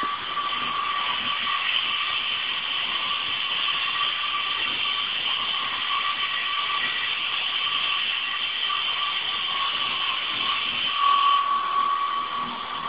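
Syma S022 twin-rotor toy RC helicopter hovering low, its battery-powered electric motors giving a steady high whine over rotor hiss.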